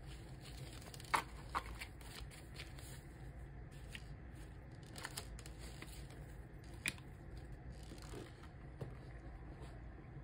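Paper banknotes being counted and sorted by hand: faint rustling and flicking of bills, with a few sharp taps, the loudest about a second in.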